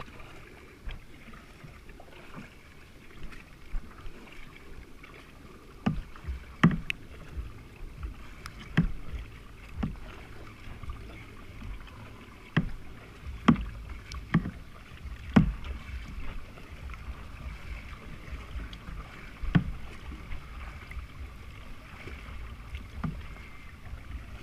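Plastic tandem kayak being paddled: sharp knocks and splashes on the hull, irregular and starting about six seconds in, over a low rumble.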